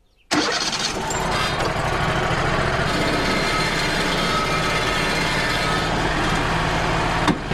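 Wood-Mizer LT35 portable band sawmill running steadily, its band blade sawing through an oak log. The sound comes in abruptly about a quarter second in and dips briefly near the end.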